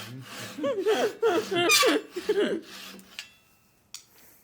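Hand saw cutting through wood in strokes about two a second, with laughter and giggling over it; the sawing stops a little past halfway, leaving only a couple of faint clicks.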